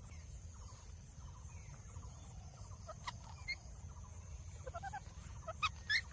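Pet parrot making faint soft chirps and short calls, with a few louder, sharper short calls near the end.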